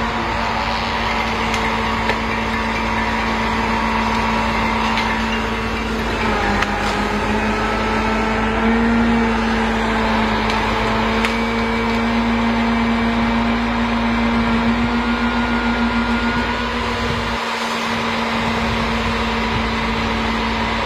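MAN truck's diesel engine running steadily while it powers the Palfinger crane's hydraulics, with a steady hum whose pitch drops about six seconds in and rises again a couple of seconds later as the crane works. A few faint knocks are heard.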